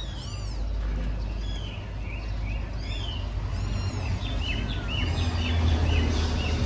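Small birds chirping, many short high chirps scattered throughout, over a steady low rumble that grows louder about five seconds in.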